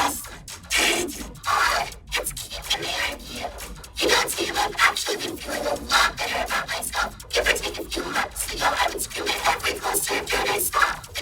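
Bursts of loud hissing white noise that stop and start with the rhythm of speech: a cartoon character's dialogue turned into white noise by an audio effect, so no words can be made out.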